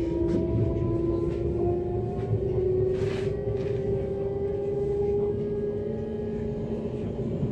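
Interior of an ES2G 'Lastochka' electric multiple unit pulling away from a station: the electric traction drive whines in several tones that rise slowly in pitch as the train gathers speed, over a low running rumble. A brief hiss comes about three seconds in.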